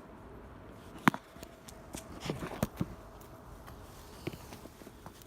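Footsteps and small knocks on rough ground: a sharp crack about a second in, then a cluster of crunches and thuds a little later, and one more knock near the end.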